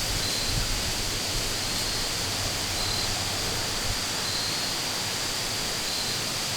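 Steady, even rush of a strong wind blowing through the woods, with no distinct events.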